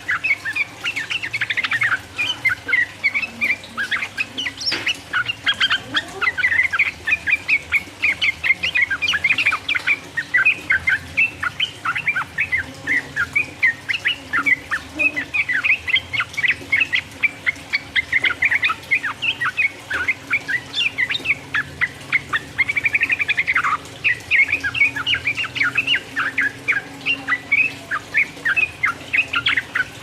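Yellow-vented bulbul (trucukan) singing a long, rapid run of quick chattering notes without pause, the fast continuous 'ropel' song used to provoke other bulbuls into singing.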